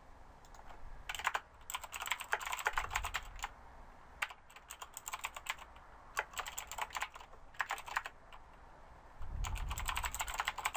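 Computer keyboard typing in several quick bursts of keystrokes with short pauses between.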